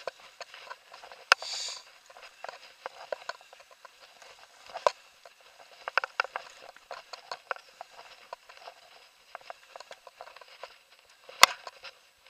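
Irregular light clicks and crackles from a handheld camera being carried along a woodland path: handling and walking noise, with sharper clicks about a second in, near the middle and loudest near the end.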